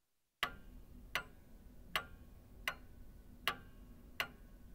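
Clock-ticking sound effect timing the answer pause of a quiz: six sharp, faint ticks, about one every three-quarters of a second, starting about half a second in.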